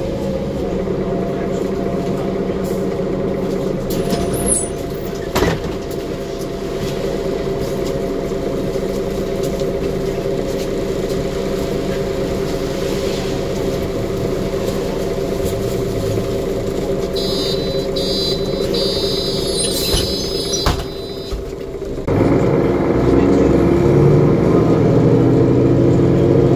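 Mercedes OM457LA diesel engine of an articulated Conecto G bus, heard inside the passenger cabin, idling with a steady drone for about twenty seconds. A high beeping comes a few seconds before the end of the idle, followed by a knock. Then the engine is floored in a kickdown and rises in pitch and loudness as the bus accelerates away.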